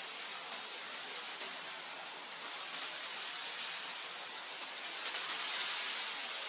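Wind blowing steadily, a soft airy hiss that swells a little near the end.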